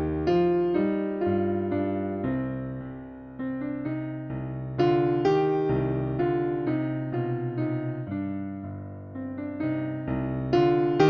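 Background piano music: a slow, gentle melody over chords, each note struck and fading.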